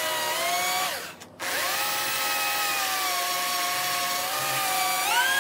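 Corded electric hand drill running under load as it bores a hole into an oiled steel C-clamp screw section. The motor winds down and stops about a second in, starts again and comes back up to speed, then speeds up again near the end.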